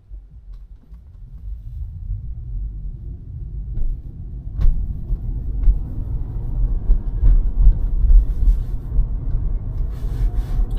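Low road and tyre rumble inside a Tesla Model 3's cabin as the car pulls away from a stop and gathers speed, growing louder over the first few seconds. A few light knocks come through, the sharpest about halfway.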